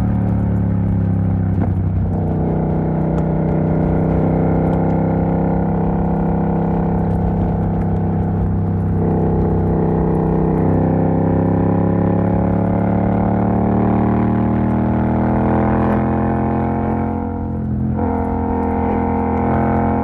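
Yamaha MT-07's parallel-twin engine running through an exhaust with the dB killer removed, holding a steady drone whose pitch slowly climbs for several seconds. Near the end the sound briefly drops away, then settles again.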